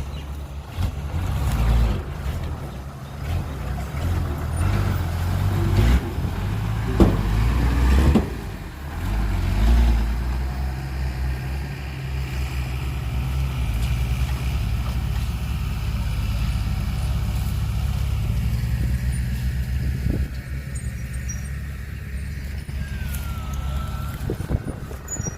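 Heavy diesel engine of earthmoving or truck equipment running steadily, with a few knocks and clanks about a third of the way in.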